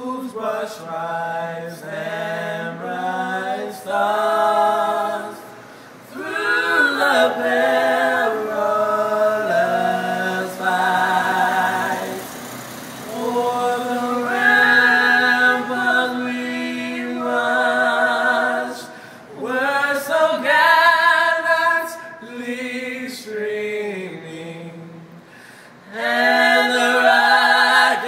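A small vocal group singing a cappella in harmony, in phrases with short breaks between them.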